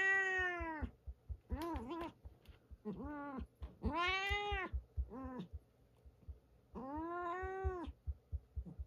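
Domestic cat meowing repeatedly: about six calls, the longer ones rising and falling in one arch, the shorter ones brief and wavering.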